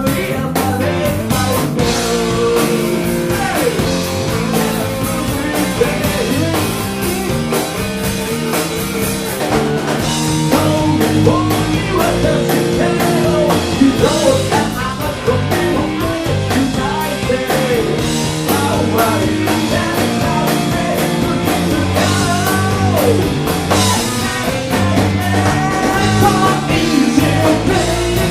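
Rock band playing live: electric guitar over bass and drums, with a singing voice.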